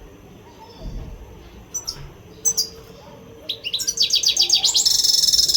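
European goldfinch singing, a bird in breeding condition: two short chirps, then a fast run of high notes that quickens into a dense, rapid trill and cuts off near the end.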